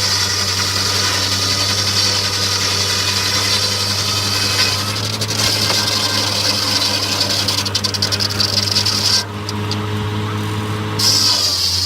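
Circular sawmill running: a steady engine hum with a high hiss over it, the hiss cutting out for a couple of seconds near the end before coming back.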